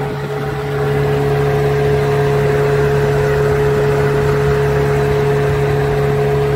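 Small outboard motor running steadily at cruising speed, its pitch held even, pushing the boat along. It grows a little louder about a second in, then holds.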